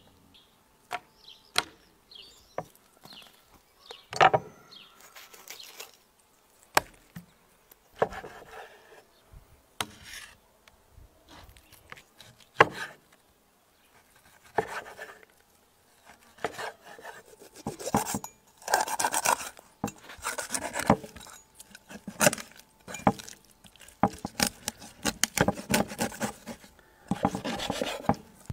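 Knife cutting raw chicken on a wooden chopping board: sharp taps of the blade on the board among wet slicing and rubbing of skin and meat. The cutting is sparse at first and busier over the last ten seconds.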